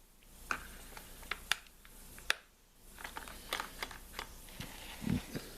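Scattered light clicks and taps from a chainsaw being handled, with a duller thump about five seconds in.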